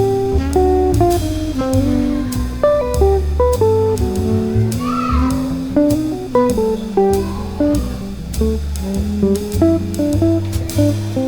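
Music led by plucked guitar over a moving bass line, with a steady beat.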